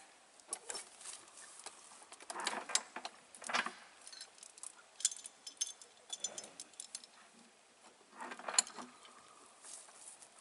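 Chain and metal yoke fittings on a bullock yoke clinking and rattling lightly as the yoke is handled, in scattered small clicks, with a few louder sounds of movement about two and a half, three and a half and eight and a half seconds in.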